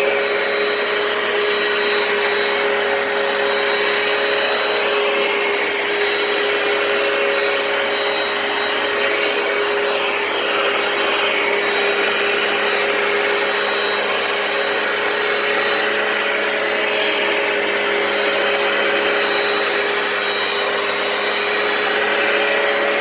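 Hoover PowerDash carpet cleaner running steadily: its suction motor gives a constant whine over rushing air as it works the carpet.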